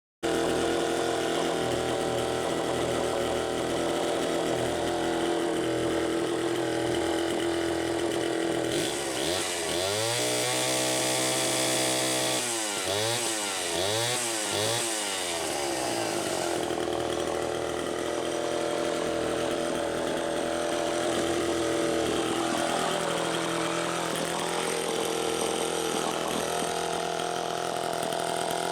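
Homelite C-72 chainsaw running on a test run, fitted with a full shell muffler. It idles steadily, is revved up to a high speed about nine seconds in and held there briefly, then is blipped up and down several times before settling back to idle.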